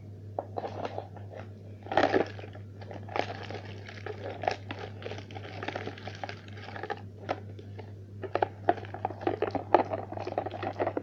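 Irregular crinkling and clicking of something being handled, with a louder burst about two seconds in and a quick run of clicks near the end, over a steady low hum.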